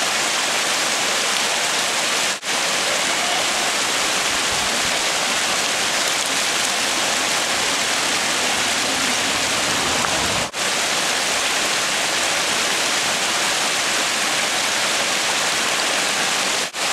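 Creek water rushing over rocks at a small waterfall: a steady, loud hiss, broken twice by an instant gap.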